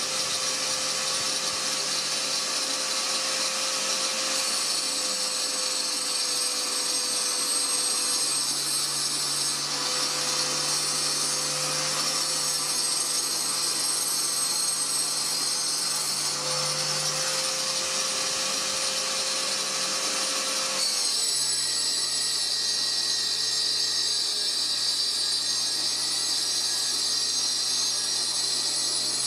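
Small router on a homemade lathe copying attachment, milling a spinning wooden blank down to a cylinder on a Corvette 71 mini wood lathe. The cutter makes a steady high whine over the motor hum, and the tone shifts about two-thirds of the way through.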